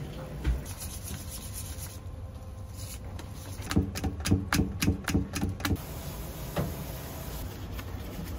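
Rhythmic scraping of a utensil working okonomiyaki batter through a stainless-steel mesh strainer. It makes about four strokes a second for some two seconds near the middle.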